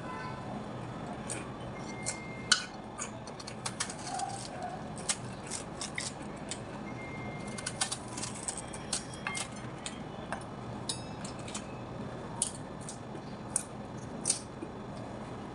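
Crisp cabbage leaves being torn and snapped off the head by hand: irregular sharp crackles with a couple of brief squeaks, over a steady low hum.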